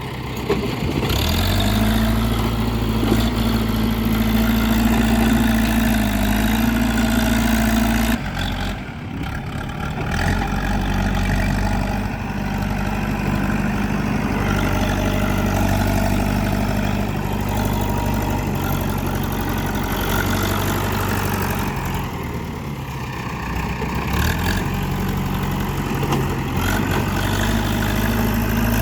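JCB 3DX backhoe loader's diesel engine running as the machine works. Its revs rise about a second in, drop sharply about eight seconds in, and dip again a little past twenty seconds before picking back up.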